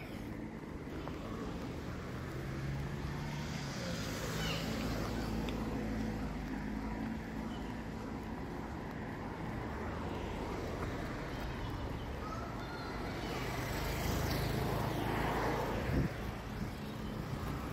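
Street traffic: cars driving past, their engines and tyres swelling and fading twice, with a single sharp knock near the end.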